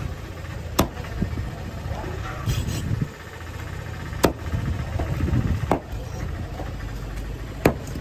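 Large cleaver chopping through spangled emperor fish into a wooden chopping block: four sharp strikes spread unevenly a second or more apart. A low steady rumble runs underneath.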